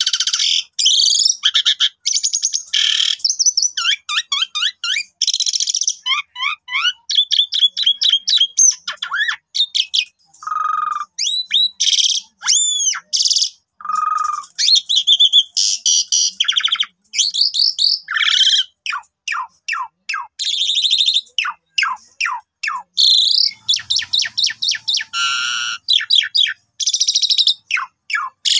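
Asian pied starling (jalak suren) singing continuously: a long, varied song of rapid chattering trills, whistled notes that rise and fall, and harsh squawks, with only brief pauses.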